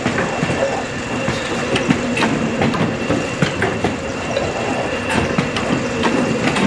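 Industrial paper-cutting machine running: a steady mechanical hum with irregular clacks and knocks, the sharpest about two seconds in.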